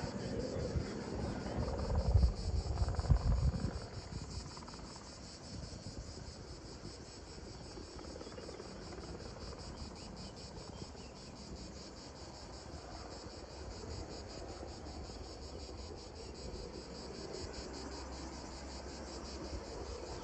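A steady, high-pitched insect chorus buzzing. Low gusty rumbling sits under it for the first three or four seconds, then dies down.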